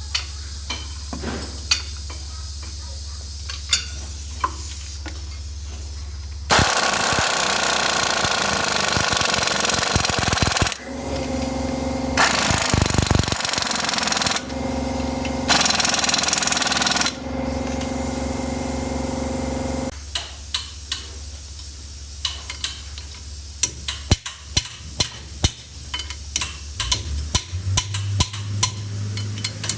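A power tool run in several loud bursts of one to four seconds, separated by short pauses, with clicks and knocks of tools and metal parts before and after.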